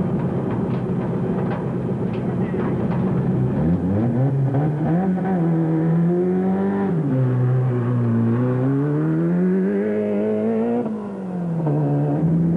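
Off-road race car engine running hard, steady at first. From about four seconds in, the revs rise and fall repeatedly, with a brief drop near the end.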